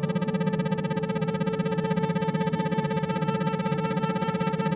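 Synthesized drone of several steady, held tones pulsing rapidly and evenly on and off: an isochronic-tone meditation track.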